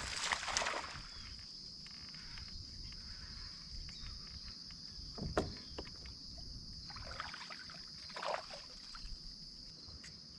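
Small sounds of a fishing kayak on the water: a couple of soft swishes and a sharp knock about five seconds in, over a steady high-pitched drone.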